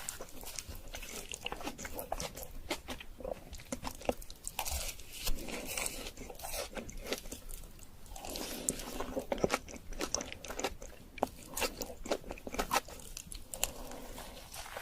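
A person biting and chewing glazed donuts, with many small irregular clicks and soft crunches.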